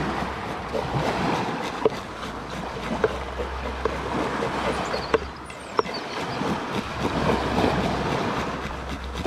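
Knife blade scraping the scales off a coral grouper on a wooden board, a string of short rasps and sharp ticks. Under it, surf washes in and a steady low rumble runs, typical of wind on the microphone.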